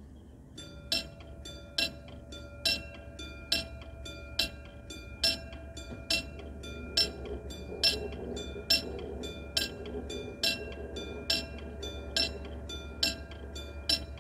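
Korean railway level-crossing warning bell ringing in an even repeating pattern, a loud strike alternating with a softer one at a bit over two strikes a second, starting about half a second in. It is the crossing alarm warning that a train is approaching.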